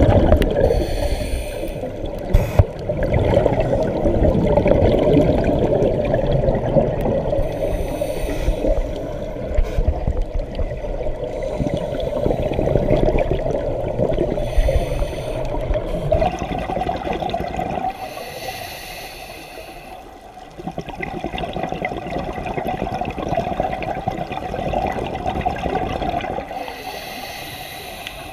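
Scuba diver breathing through a regulator underwater: a hiss of inhaled air about every six to seven seconds, between long bubbling rumbles of exhaled air. The bubbling is softer in the second half.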